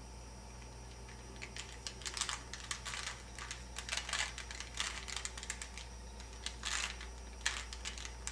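Plastic Rubik's Cube being twisted quickly, layer after layer: a run of fast, irregular clicks and rattles that starts about a second and a half in.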